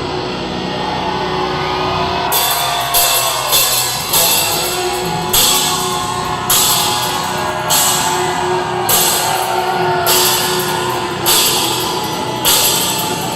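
Live hard rock band playing an instrumental passage: electric guitar over a drum kit, with cymbal crashes about once a second from about two seconds in.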